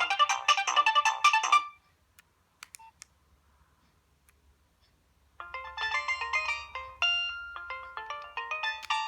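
Nokia 2610 ringtone melody playing, a fast run of bright notes that cuts off about two seconds in. After a few faint clicks and a pause of several seconds, another ringtone starts: a quick melody of clear notes, several sounding at once.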